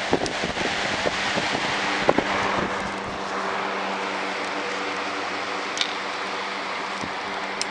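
Wind-driven whirligig running: its propeller whirs in the wind, with wind buffeting the microphone and scattered light clicks and knocks, most of them in the first few seconds.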